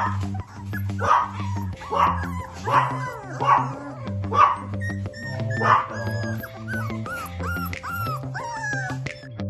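Young Labrador retriever puppies yelping and barking about eight times in quick succession, then giving a run of short, high whines near the end, over background music with a steady beat.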